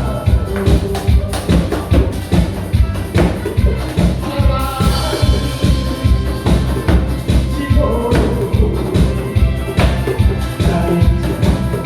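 Loud upbeat music with a steady, fast, driving beat and percussion.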